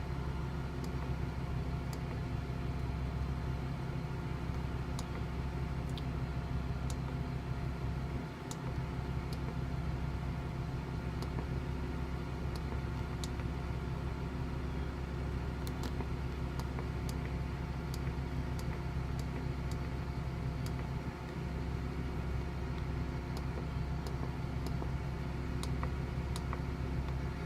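Blue Bird Vision school bus gasoline engine idling steadily, heard from inside the bus, with faint scattered light ticks.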